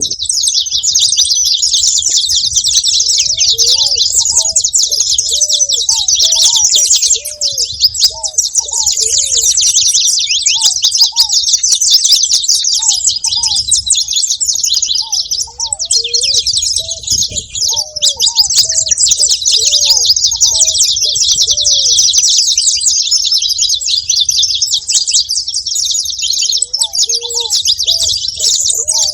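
Saffron finch chirping and twittering in a dense, continuous stream of rapid high notes. A lower series of short arched notes comes and goes in runs several times.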